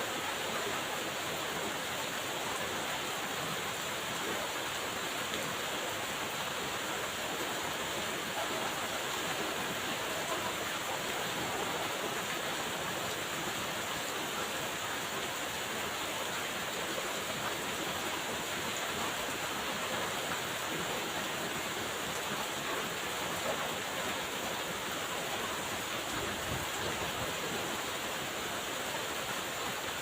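Steady rainfall, an even hiss of rain with no let-up.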